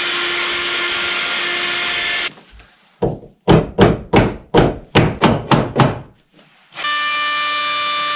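Circular saw running, then stopping; about nine sharp hammer blows on the wooden plank in quick succession, about three a second; then the saw starts up again near the end.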